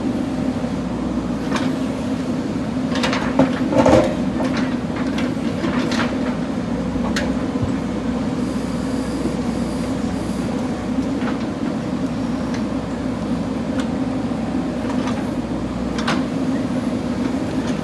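JCB backhoe loader's diesel engine running steadily at working revs. Scattered clanks and knocks sound over it, the loudest a short clatter about four seconds in.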